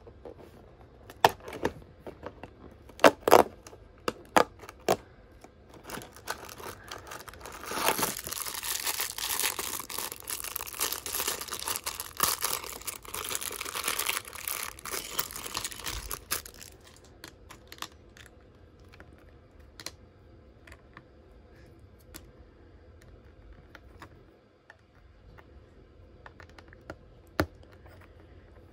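A few sharp clicks as the cardboard door of the advent calendar is pushed open. Then, for about eight seconds, a plastic bag of LEGO pieces is torn open and crinkled. After that come sparse faint clicks of small LEGO pieces being fitted together.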